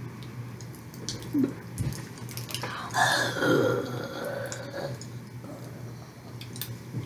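Popping candy crackling in a mouth, heard as scattered faint clicks, with a muffled vocal sound from behind cupped hands lasting about two seconds from about three seconds in.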